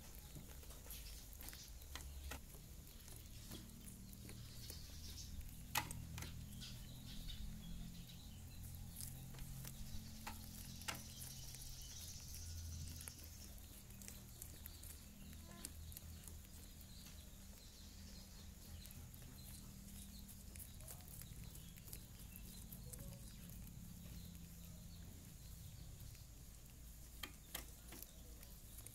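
Baby rabbits gnawing kernels off a cob of fresh yellow corn: faint, irregular crisp clicks and crunches, over a low steady hum.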